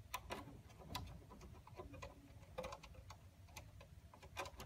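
Faint, irregular clicks and ticks of a screwdriver turning the small screws that fasten an Ethernet communication card into a power meter's card slot.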